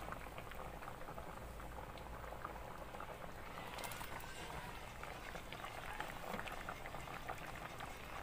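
Mung bean and vegetable stew boiling in a pot, a steady bubbling dotted with small irregular pops. About four seconds in there is a brief denser crackle and splash as pieces of fried fish are slid into the boiling broth.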